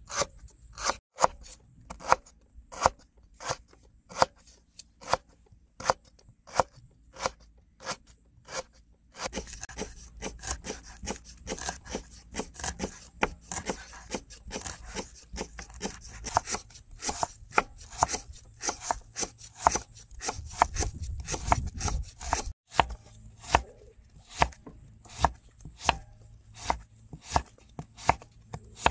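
Large kitchen knife chopping on a wooden board: a steady run of sharp knocks, about two to three a second, as it slices lemongrass, then leaves, then red onion.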